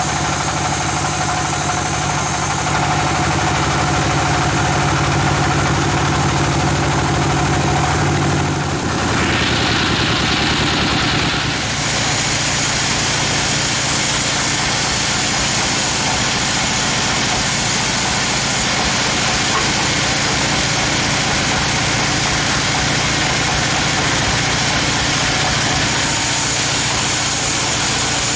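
Engine-driven sawmill saw running steadily and loudly; its sound changes abruptly about nine and again about twelve seconds in.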